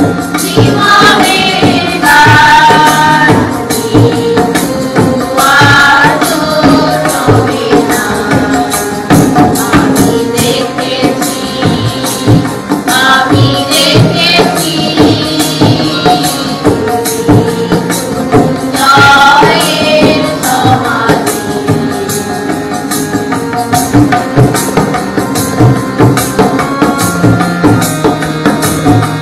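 Bengali Christian devotional song: sung phrases over a steady percussion beat, with instrumental stretches between the sung lines.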